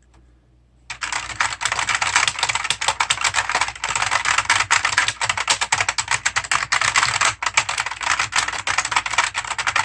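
Fast, continuous typing on an Electroman gaming mechanical keyboard with blue clicky switches, said to be Outemu blues: a dense, uneven clatter of keystrokes that starts about a second in.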